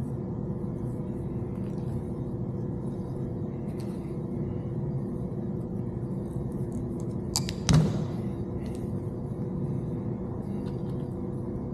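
A steady low mechanical hum holding a few fixed tones, with a single sharp click or snap about seven and a half seconds in.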